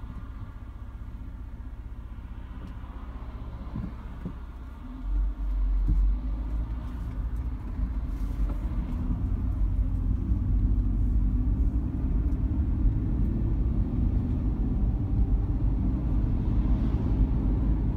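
Car on the road: a steady low rumble of engine and tyre noise that grows louder about five seconds in and stays loud.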